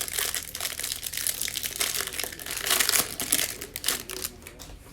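Plastic wrapper of a trading-card hanger pack crinkling and crackling as it is handled and opened, dying down near the end.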